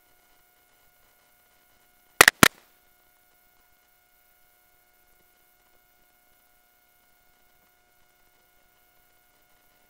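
Three sharp knocks in quick succession about two seconds in, over the steady electronic whine of an ATN X-Sight II HD digital night-vision scope picked up by its own microphone.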